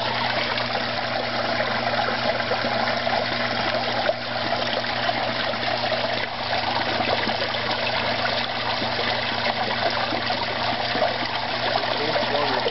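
Steady trickling of running water in a garden koi pond, with a low steady hum underneath.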